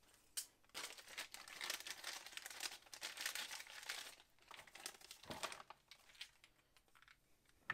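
Clear plastic packaging bag being opened and handled, crinkling densely for about three and a half seconds from about a second in, then a few softer crinkles.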